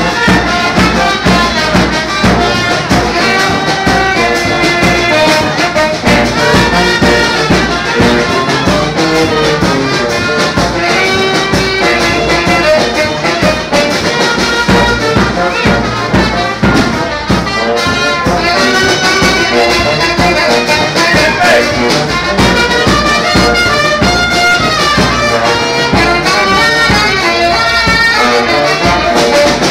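Loud live band music with brass and a steady beat, played for a circle dance.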